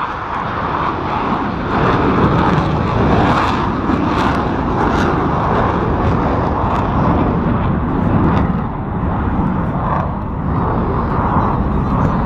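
Jet engine noise from CASA C-101 Aviojet jet trainers of an aerobatic display team flying past. It is loud and steady, easing slightly twice in the second half.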